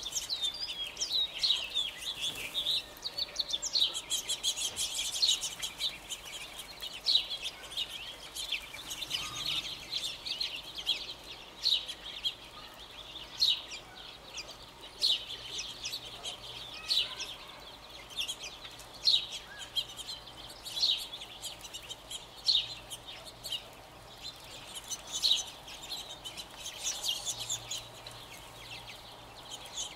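A foraging flock of California quail calling: a steady run of short, sharp chirps and clucks, one or two strong notes a second over many softer ones.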